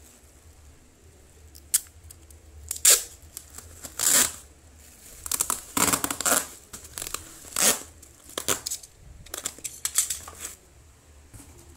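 Brown packing tape pulled off its roll in several short ripping pulls and pressed down onto plastic bubble wrap, which crinkles under the hands.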